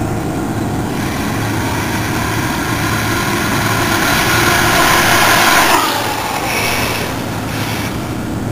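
Electric RC truck speeding toward and past the camera on concrete: the whir of its motor and tyres grows louder over a few seconds, peaks about six seconds in as it passes, then drops away suddenly with a falling pitch.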